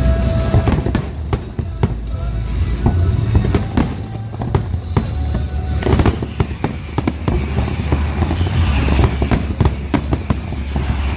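Aerial fireworks bursting in rapid succession: many sharp bangs and crackles over a continuous low rumble of explosions.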